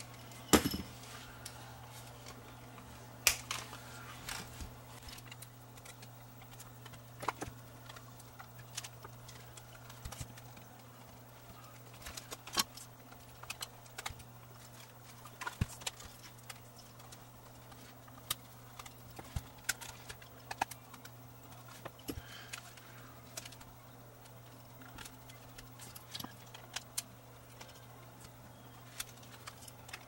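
Irregular small clicks, taps and knocks of plastic and metal camcorder parts being handled and pried apart during hand disassembly of a Sony DCR-TRV530 Digital8 camcorder, over a steady low hum.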